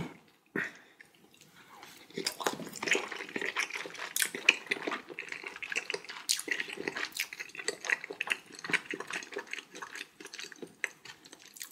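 Close-miked wet chewing of a slice of raw yellowtail sashimi: soft, irregular squishing and smacking mouth sounds that start about two seconds in and go on steadily.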